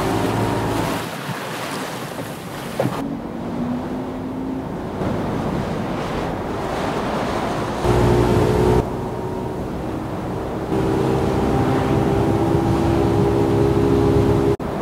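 Layered stock sound effects of wind and rushing lake water, with a boat motor's low hum fading in and out. The mix jumps abruptly several times as the edit cuts between shots.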